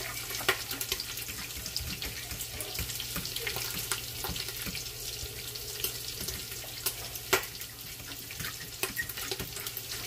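Bacon frying in grease in the pot of a Ninja Foodi Possible Cooker Pro: a steady sizzling hiss, with scattered sharp pops and clicks.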